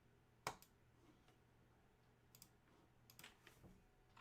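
A few scattered clicks against near silence, the sharpest about half a second in.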